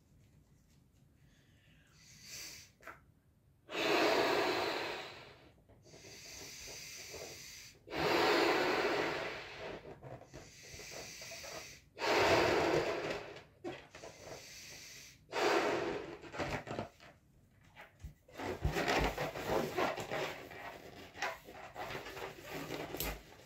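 A Folat latex balloon being blown up by mouth: four long, strong breaths blown into it, each a second or two, with quieter breathing between. In the last few seconds come irregular rubbing and crackling of the latex as the inflated balloon is handled.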